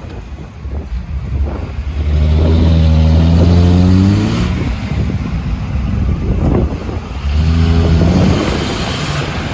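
A truck's engine revving hard twice, its pitch climbing each time, as it is driven through deep mud.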